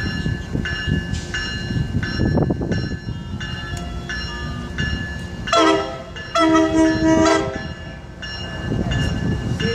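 Tri-Rail commuter train sounding its horn over the train's low rumble: a short blast about five and a half seconds in, then a longer blast of about a second. A bell rings about twice a second throughout.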